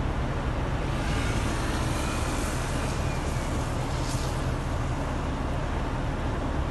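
Steady road traffic rumble, with a vehicle passing and its tyre hiss swelling from about one to four seconds in.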